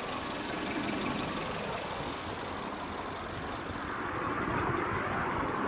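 Suzuki Jimny running steadily with a loud mechanical noise, which the owner places in the gearbox area.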